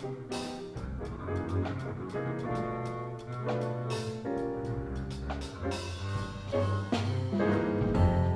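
Jazz combo playing: a double bass played with the bow, alongside piano and drums with cymbal strokes.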